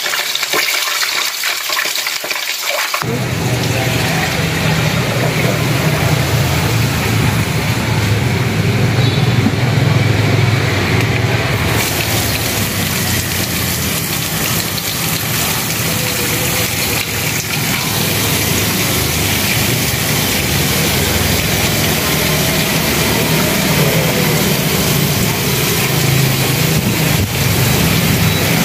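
Oil sizzling around a whole snakehead fish frying in a wok. About three seconds in, this gives way to tap water gushing steadily into a plastic basin as herbs are rinsed under the stream.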